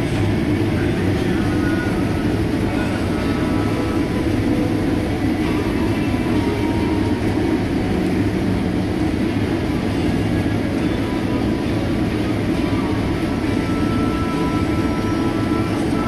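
Rotary combine harvester running steadily through standing corn, heard from inside the cab: an even, heavy drone from the engine at about 2100 rpm under high load, with the threshing rotor turning at about 360 rpm.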